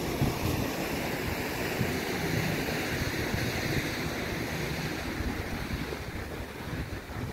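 Wind buffeting the microphone: an uneven low rumble under a steady hiss.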